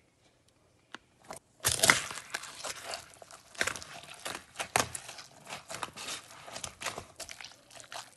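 An instant-noodle cup being shoved and tipped over on a counter by a hand puppet: crinkling and crunching of the cup and its torn lid, with a rapid run of clicks and scrapes that starts about two seconds in and is loudest near its start.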